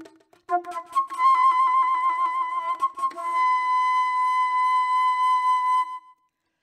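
Flute playing a wavering high note with vibrato, then holding one long steady note that ends at about six seconds, over a faint low sustained note.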